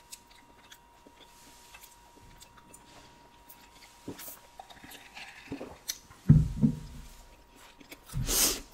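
Close-miked eating sounds: quiet mouth clicks at first, then louder chewing of a fried fish taco around six to seven seconds, and a short loud rush near the end.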